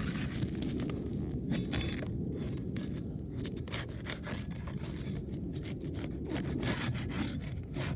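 Steel flat bar scraping and prying under asphalt roof shingles, breaking their adhesive seal, a continuous gritty scraping with many short crackles. Granules shed from the shingles as the bar goes under.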